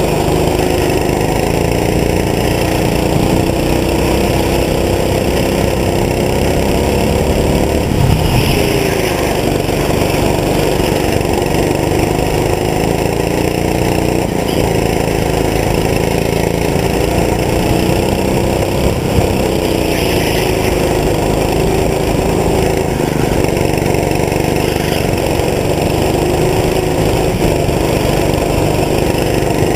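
Small go-kart engine running hard, heard from on board, its pitch dropping and rising again every few seconds as the kart brakes into corners and accelerates out. A brief knock about eight seconds in.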